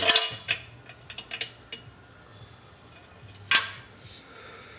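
Light metallic clinks and taps, then one louder knock about three and a half seconds in: the exhaust pipe of a 1969 Honda CT90 being handled and inspected.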